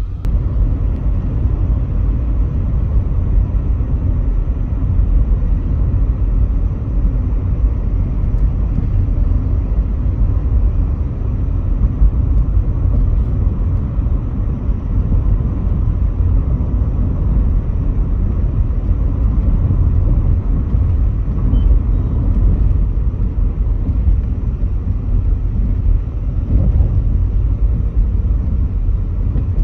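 Steady low rumble of road and engine noise inside a Volkswagen Polo GT's cabin while it is driven along a city road.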